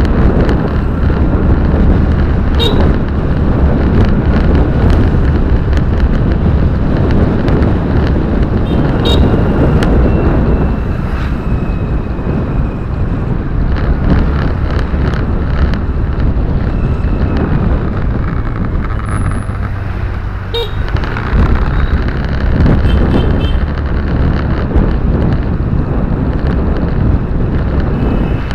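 Car interior road noise while driving: a steady low rumble of tyres and engine with some wind noise, broken by a few sharp knocks, at about three seconds, around nine seconds and near twenty-one seconds.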